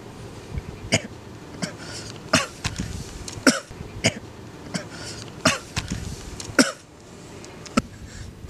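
A man coughing hard and repeatedly: about seven sharp, hoarse coughs spaced roughly a second apart.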